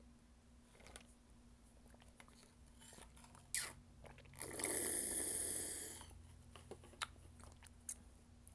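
Slurping the last of the cereal and plant milk straight from a tipped-up bowl: a short, sharp slurp about three and a half seconds in, then a longer slurp lasting about a second and a half. Faint chewing and small mouth clicks come before and after.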